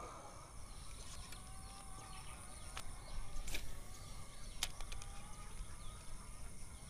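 Quiet outdoor background with faint bird calls, broken by a few sharp clicks from a baitcasting reel being handled during a cast, the two loudest a little past the middle.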